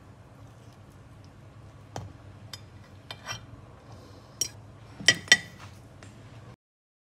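A metal fork clicking and scraping against a glass food container while cutting a donut, a handful of light ticks building to two loud clinks about five seconds in, over a faint steady hum.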